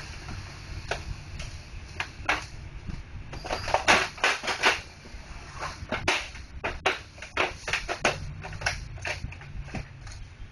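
Irregular plastic clicks and knocks of Brother MFC-J615W inkjet printer parts being handled and fitted together, busiest in the middle, over a low steady hum.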